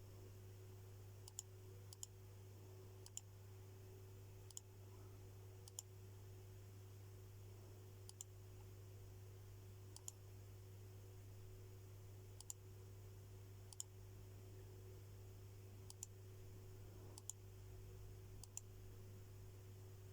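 Faint, steady low hum of a 100 Hz test tone driving a bass shaker, with a fainter higher steady tone above it. Light, sharp clicks come at uneven intervals, every second or two.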